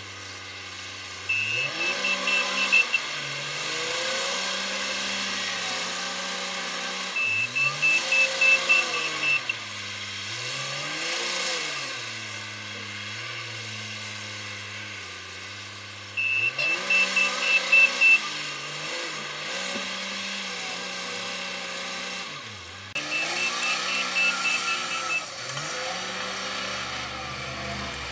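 Komatsu WA350 wheel loader's diesel engine revving up and down as it works, with its reverse alarm sounding rapid high beeps in four bursts of about two seconds each. The uploader finds the reversing sound strange.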